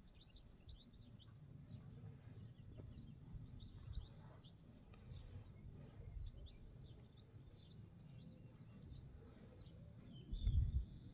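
Small birds chirping and twittering, many short high calls throughout, over a steady low rumble. A louder, brief low thump about ten and a half seconds in.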